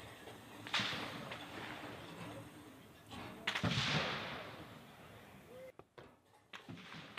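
Rifle fire on a shooting range: two sharp shots, about a second in and about three and a half seconds in, each trailing off in a long echo, with fainter cracks between.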